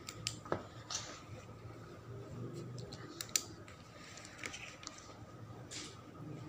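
Close handling of a pen and a stiff brown paper folder: a few sharp clicks, then the paper rustling as it is picked up and turned, over a faint steady hum.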